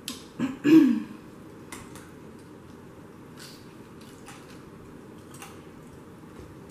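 A person's short throat-clear in the first second, with a falling pitch, during a spicy chicken sandwich eating challenge. It is followed by a few faint, scattered clicks and smacks of eating and drinking.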